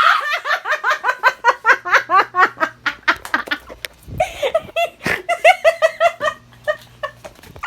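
Young women laughing: a long run of rapid giggles, pausing briefly about four seconds in before starting up again.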